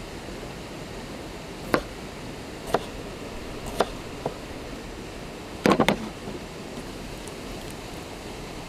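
Cooking work sounds: a few sharp knocks and clicks about a second apart, with a quick cluster of them about six seconds in, over a steady hiss.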